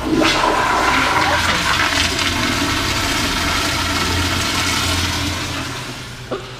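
Commercial flushometer toilet flushing: a sudden loud rush of water that holds for about five seconds, then tapers off.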